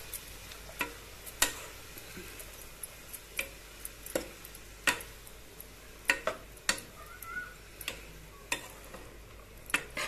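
A steel ladle stirring shredded cabbage and green beans in a nonstick kadai, knocking and scraping against the pan at uneven intervals about once a second, over a faint sizzle of the vegetables frying in oil.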